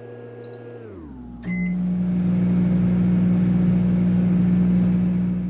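Microwave oven keypad beeping, then the oven switching on with a click about a second and a half in and running with a loud, steady electrical hum. Before it starts, a few steady tones slide down in pitch and fade out.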